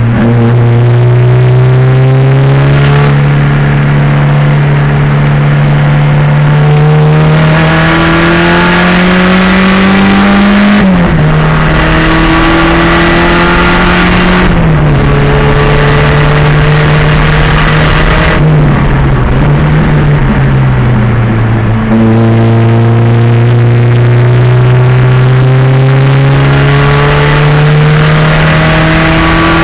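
1987 Pontiac Fiero race car's 2.0-litre turbocharged engine running hard under load, its pitch climbing slowly as the car accelerates. The pitch drops sharply twice, about a third and a half of the way through, at gear changes or a lift. It wavers low for a few seconds, as when braking for a corner, then climbs steadily again.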